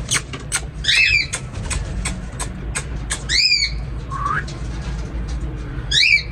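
Parrots squawking: three loud, harsh, arching calls, about a second in, midway and near the end, with a shorter rising call between. Behind them runs a quick scatter of short, sharp chirps and a steady low hum.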